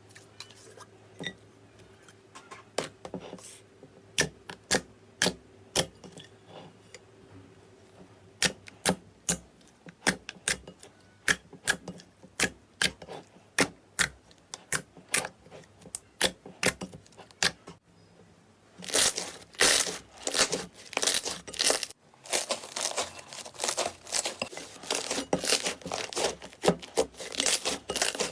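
Slime being squeezed and pressed by hand, making a run of sharp clicks and pops. The clicks come one at a time at first, then thicken into a fast, crowded crackle from about two-thirds of the way in.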